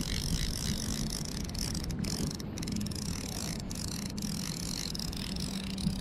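Fly reel's click-and-pawl drag ratcheting in a rapid, continuous run of clicks while a hooked trout is on the line.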